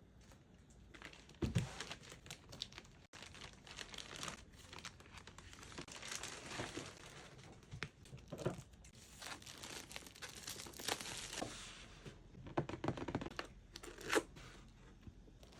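Packaging being handled: irregular crinkling and tearing with scattered knocks, the loudest about a second and a half in and near the end.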